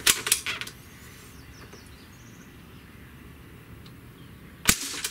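Umarex Ruger 10/22 CO2 air rifle firing one .177 lead pellet with a single sharp pop near the end. A few short mechanical clicks come first as the rifle is handled.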